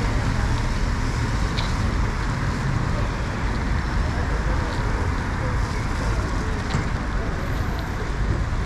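Steady city street noise: traffic running by with a constant low rumble and a few faint clicks.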